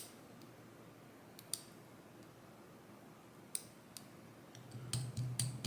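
Small metal clicks and taps of a tool working inside a disassembled lock cylinder, fishing for a stuck spring: a few scattered ticks, then a quick run of clicks near the end.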